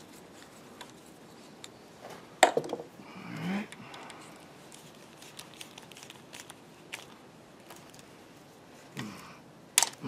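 Faint metal clicks and scrapes of a hand tool turning a Lock-N-Stitch threaded repair pin into a tapped hole along a crack in a cast-iron engine block. A sharper click comes about two and a half seconds in and another near the end.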